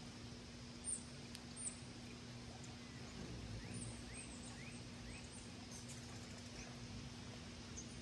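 Faint outdoor ambience: small birds giving short, high-pitched chirps now and then, with a quick run of rising chirps about three seconds in, over a steady low hum.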